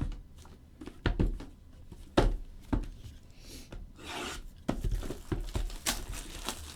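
Hands handling a box of trading cards on a table: a series of knocks and taps, with a rustle of wrapping about four seconds in.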